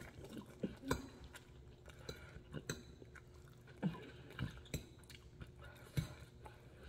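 Mouth sounds of chewing noodles, with a metal fork clinking and scraping against the plate in irregular short clicks.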